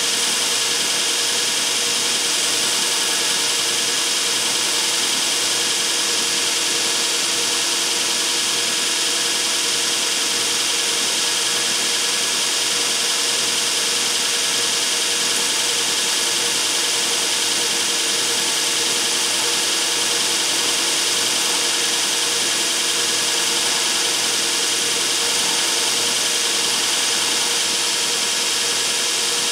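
Belt grinder running steadily, its abrasive belt grinding a steel knife blade cut from a lawnmower blade on the small contact wheel to shape the bevel, a loud even grinding hiss over the motor's hum.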